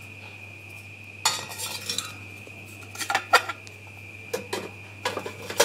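Steel tin cans of a homemade woodgas stove knocking and scraping against each other as one can is fitted down inside another. There are a few separate clinks and scrapes, the longest about a second in.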